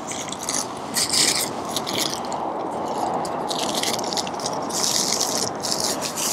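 Parchment paper crinkling and rustling in irregular bursts as pizza dough sandwiched between two sheets is handled, over a steady rushing background.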